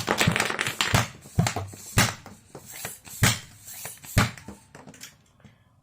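A rapid, irregular clatter of sharp knocks and clicks with rushing noise between them, dying away after about four seconds.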